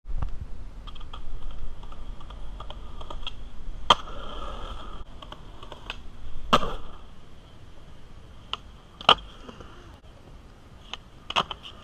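Skateboard wheels rolling on pavement and concrete, with sharp clacks of the board popping and landing about four, six and a half, nine and eleven seconds in.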